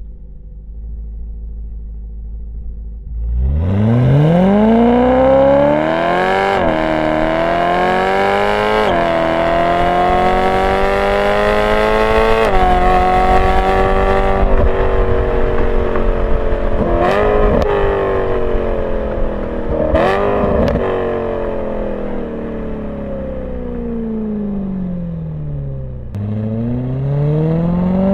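BMW E92 M3's V8 heard through a Borla ATAK exhaust without venturis: idling, then accelerating through several upshifts with the pitch climbing in steps, holding a steady cruise with two brief rises in pitch, then slowing with the pitch falling before accelerating again near the end.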